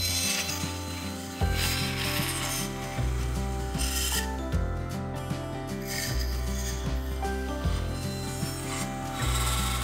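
Bandsaw blade cutting along a narrow wooden strip, a rasping sound that comes and goes, over background music whose low notes change about every second and a half.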